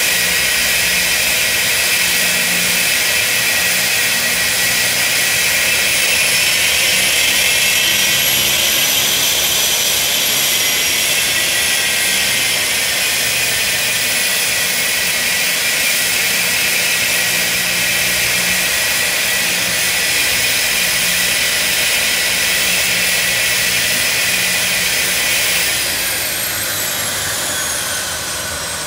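A Lancair's 750 hp turboprop engine running on the ground, a steady turbine whine over the propeller. The whine rises slightly in pitch and eases back partway through, then falls in pitch and gets quieter near the end.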